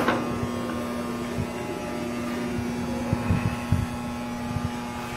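MaxiMart vertical milling machine, a Bridgeport-type knee mill, humming steadily at its head, with a few soft knocks as the spindle brake lever is worked.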